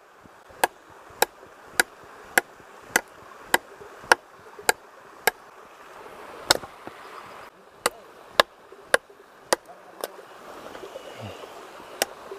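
Chopping into a very hard piece of wood: sharp, even strikes a little under two a second, with two short pauses, over the steady rush of a stream.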